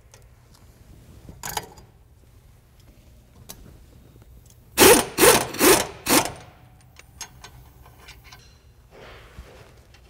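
Hand tools working metal on the Jeep steering knuckle's ball-joint cotter pins and nuts: a faint scrape, then four quick, loud metal strokes in a row about halfway through, followed by a few light clicks.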